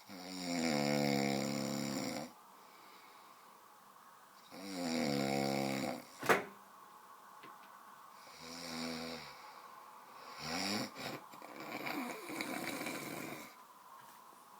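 A sleeping person snoring very loudly: two long snores of about two seconds each with quiet gaps between, then shorter, weaker and more broken snores. A single short sharp sound just after the second snore is the loudest moment.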